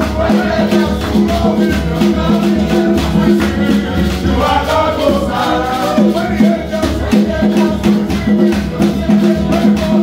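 Live praise music: an acoustic guitar and a keyboard playing together over a steady rattling beat, with voices singing along, most clearly around the middle.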